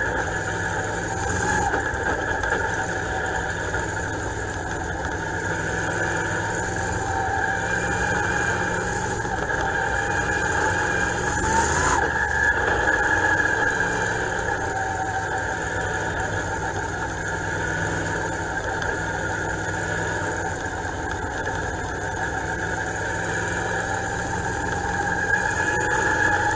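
Dirt-track race car's engine heard from on board, running steadily as the car laps the track, its pitch wavering a little and rising briefly about halfway through.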